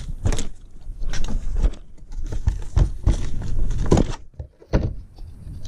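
Plastic engine cover of a BMW B58 being pulled up off its mounts by hand: a series of knocks and scrapes, the loudest about four seconds in.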